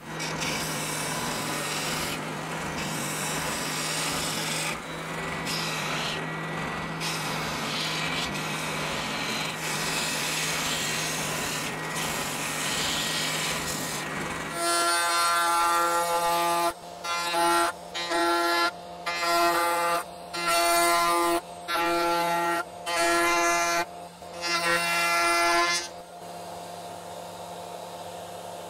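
Power tools working plywood: one runs steadily for about fourteen seconds, then a higher-pitched whining tool is run repeatedly in short bursts of about a second each, with a quieter steady sound near the end.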